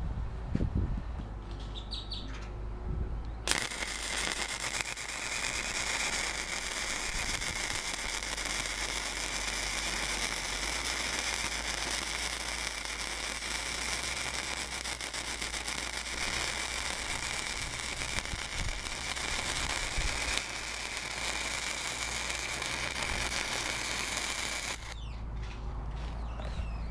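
Blue Demon 140MSI welder running 0.030 flux-core wire at its maximum setting, laying a stringer bead on 1/4-inch plate. The arc strikes about three and a half seconds in, gives a steady spattering crackle for about twenty seconds, and cuts off near the end.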